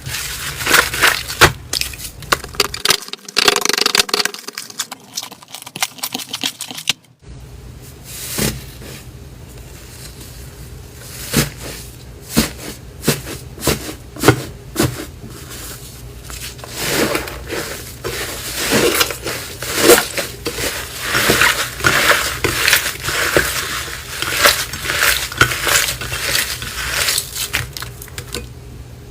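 Slime being squeezed and pressed, with dense crackling and clicking. The sound cuts off abruptly about seven seconds in and resumes quieter, growing busier toward the end.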